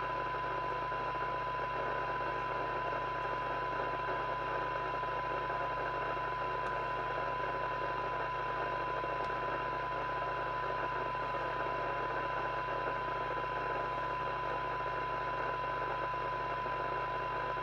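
President Walker ASC CB radio's loudspeaker giving a steady 1 kHz test tone from a signal generator, deep in receiver hiss. The signal is set as weak as still usable, near the receiver's sensitivity limit, so that each receiver coil can be peaked during alignment.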